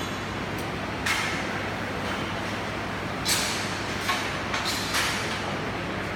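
Arc welding: a steady hiss with about half a dozen short, sharp hissing crackles.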